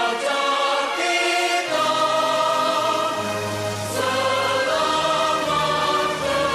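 Choir singing an anthem with instrumental accompaniment, in long held notes over a steady bass line.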